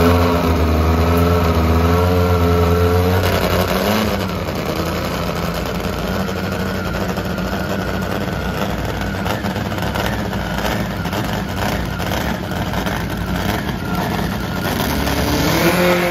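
Top Fuel nitro drag motorcycle engine being fired up: it runs unevenly for about three seconds, then settles into a steady idle. Near the end there is a short rise in pitch.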